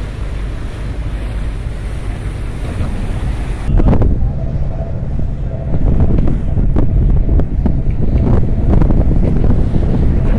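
Wind buffeting the microphone: a heavy low rumble that gets louder and gustier about four seconds in.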